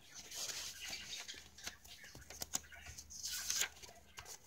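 Paper rustling and crinkling with a few sharp ticks as the pages, pockets and cards of a handmade paper journal are handled. The rustling is loudest about half a second in and again around three seconds in.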